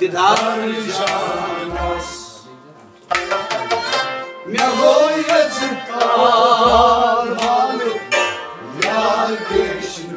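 Kashmiri folk song: a man singing over a harmonium's sustained chords, with a rubab plucking sharp notes. There is a brief lull about two seconds in before the voice and instruments come back in.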